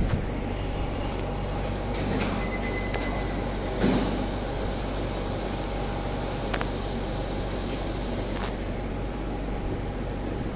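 Steady machinery hum with a few sharp clicks and a louder knock about four seconds in.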